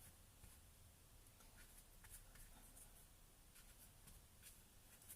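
Near silence, with faint scattered scratches and dabs of a paintbrush working acrylic paint on canvas.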